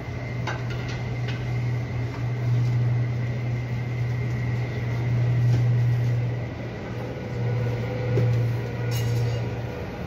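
Airbus A350-900's Rolls-Royce Trent XWB jet engines at taxi power, muffled by terminal glass into a low hum that swells and eases several times, with a thin high whine above it.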